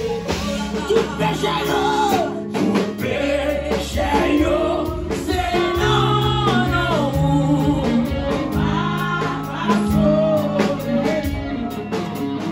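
Gospel singing into a microphone over band backing music, with a steady bass line and drums beneath a sung melody.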